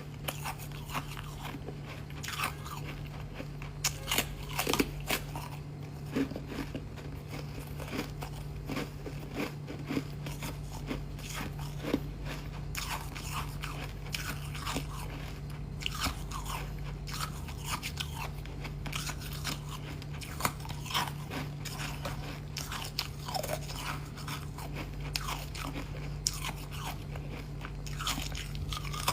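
Close-miked biting and chewing of thin, foamy ice: irregular crisp crunches, several loud bites among steady chewing.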